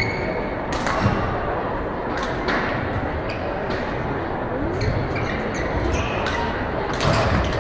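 Badminton rally: a racket hits the shuttlecock sharply every one to two seconds, with a loud strike near the end, over the steady background noise of a large hall.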